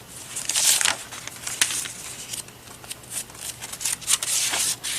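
Sheets of paper rustling and sliding against each other as they are handled and laid onto piles, in irregular swells, with one sharp tap about a second and a half in.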